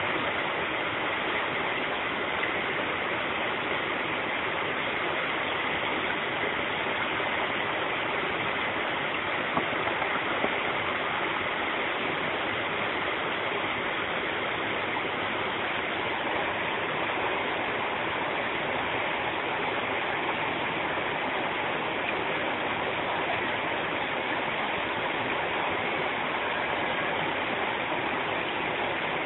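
Fast-flowing stream rushing over rocks in a steady, unbroken rush of water.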